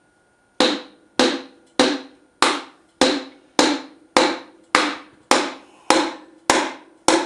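A wooden hammer knocking a piston down into a cylinder bore of a Ford 390 FE V8 block: about twelve even knocks, roughly one every 0.6 seconds, each ringing briefly.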